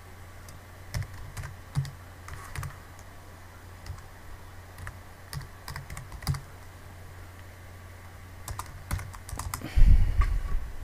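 Typing on a computer keyboard: scattered single keystrokes and short bursts, then a quicker, louder run of keys near the end, over a steady low hum.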